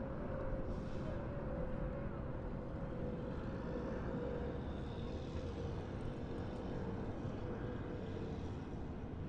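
Distant traffic on a main road: a steady rumble of passing vehicles, with one engine drone that slowly drops in pitch.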